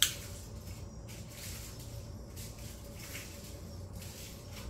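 A lighter clicks once as it is struck, then faint soft airy puffs as a tobacco pipe is drawn on while being lit.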